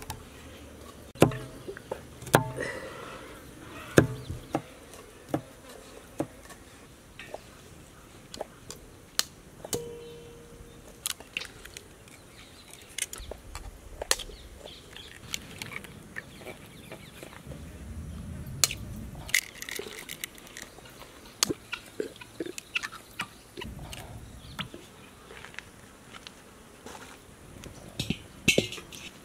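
A kitchen knife chopping garlic cloves on a wooden block, a scatter of sharp irregular knocks, followed by eggs being cracked against a knife blade with lighter clicks.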